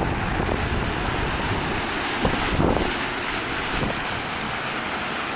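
Wind buffeting the microphone over a steady rushing hiss of wind and water; the low rumble of the gusts eases after about three seconds.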